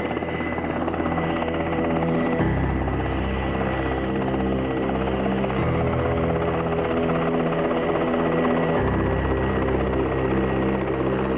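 A Mi-8-type military transport helicopter flying close by, its rotor chopping over the steady turbine noise. Background music with sustained low chords that change every few seconds plays at the same time.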